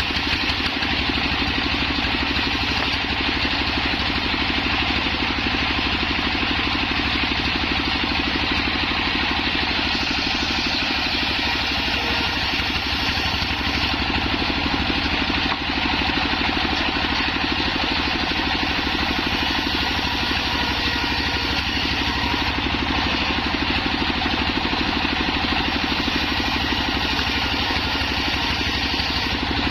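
Homemade circular saw rig running steadily, a continuous machine drone with no break.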